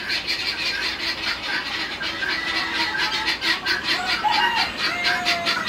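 Chickens clucking and calling, a dense run of short rapid calls.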